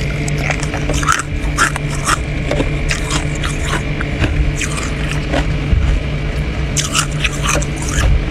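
Irregular crisp crunches and crackles of freezer frost, several a second, over a steady low hum.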